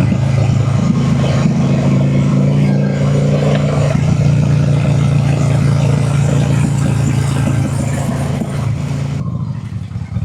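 Honda Shadow V-twin cruiser engine running steadily under way, with road and wind noise. A higher engine note joins in from about one to four seconds in, and the sound changes abruptly about nine seconds in.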